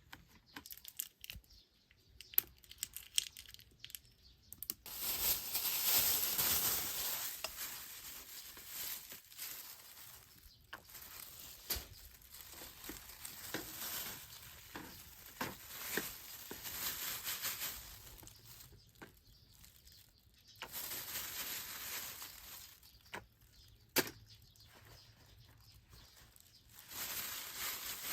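Irregular rustling and crinkling handling noises, like packaging or wrapping being torn and handled, with scattered sharp clicks; the longest stretch of rustling comes about five seconds in.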